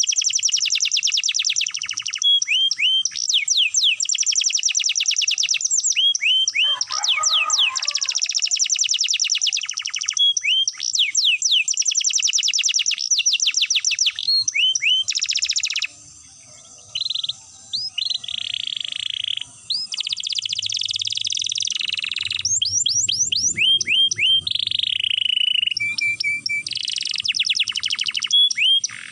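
Canary singing long rolls: fast trills of rapidly repeated high notes that run one into another, with a few held, steadier notes partway through.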